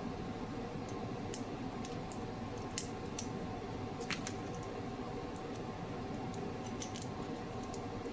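Scissors snipping through two pieces of metal measuring-tape blade at once: scattered sharp, irregular clicks over a steady background hum.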